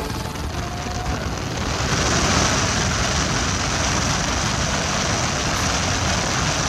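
Loud wind and road noise of a car at full speed, rushing in through an open window during a highway race pull. It swells about two seconds in and then holds steady, with no clear engine note above it.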